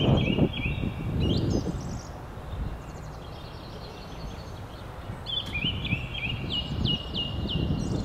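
A songbird singing a phrase of repeated clear whistled notes near the start, and again about two-thirds of the way through, over a low background rumble.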